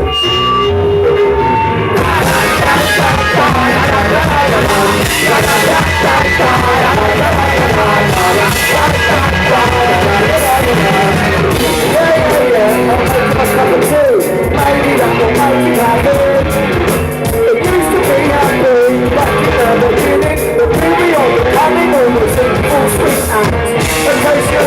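Rock band playing a song live through a club PA, loud and continuous. The full band, with cymbals and distorted guitars, comes in about two seconds in after a sparser opening.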